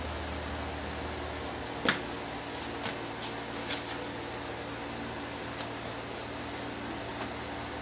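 Refrigerator running with a steady low hum and hiss. A sharp click about two seconds in, then a few light ticks.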